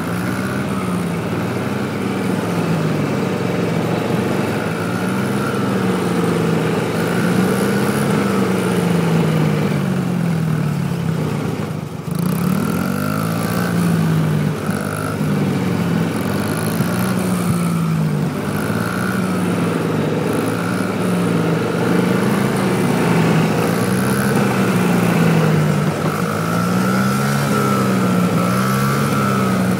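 Small dirt bike engines running at low trail speed, the pitch rising and falling in slow waves every couple of seconds as the throttle opens and closes, with a short drop about twelve seconds in.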